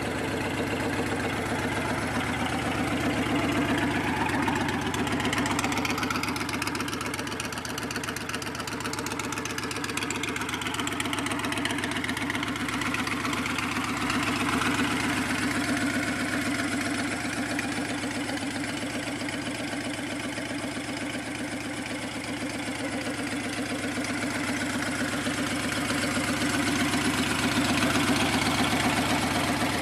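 2010 Honda Fury's 1312 cc V-twin idling steadily through an aftermarket Viper II exhaust, with only slight swells in level.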